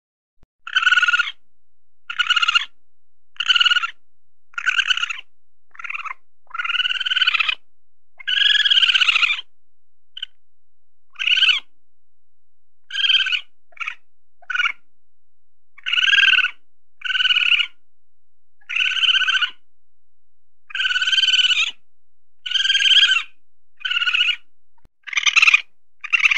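Weasel calling over and over: about eighteen short high-pitched cries in a loose, uneven series, a few of them drawn out to about a second with a rise and fall in pitch.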